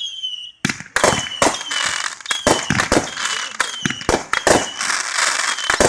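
Consumer fireworks going off: after a brief lull, a rapid, irregular run of sharp bangs and crackles.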